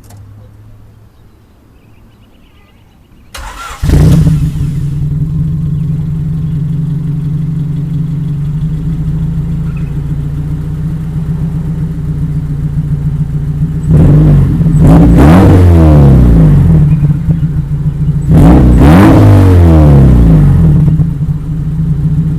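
Turbocharged hatchback engine, running through a freshly welded 2¼-inch exhaust with no muffler fitted, cranks and starts a few seconds in and settles into a steady idle. It is then revved twice, each rev rising and falling over about two seconds.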